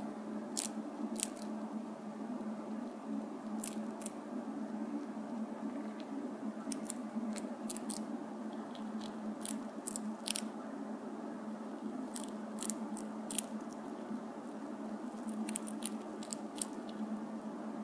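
Gerbil nibbling a Cheerio: small, irregular crunchy clicks from its teeth, over a steady low hum.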